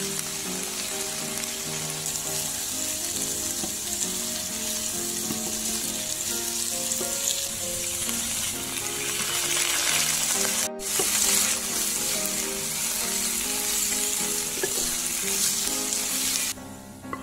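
Food sizzling as it fries in hot oil in a pan, a steady hiss that breaks off for an instant about ten and a half seconds in and stops near the end.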